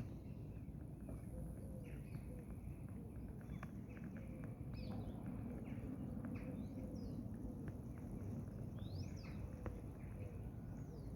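Small birds chirping and calling outdoors: scattered short chirps and quick rising-and-falling call notes, over a steady low rumble of background noise.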